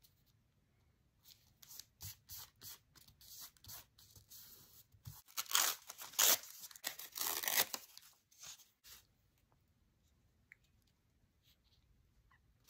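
An old book page being torn by hand: a series of short rips, then longer, louder tears about halfway through, stopping a few seconds before the end.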